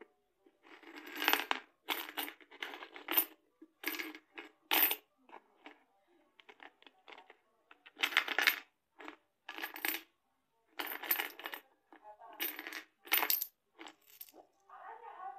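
Coins clattering inside a plastic piggy bank as it is shaken and tipped, in repeated short bursts with a thinner stretch midway.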